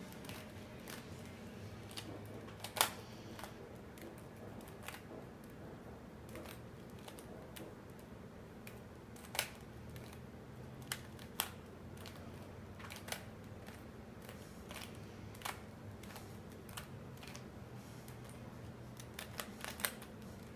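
Plastic clicks and clacks of a Rubik's cube being turned by hand, irregular and spaced apart, with the loudest snap about three seconds in. A faint steady hum runs beneath.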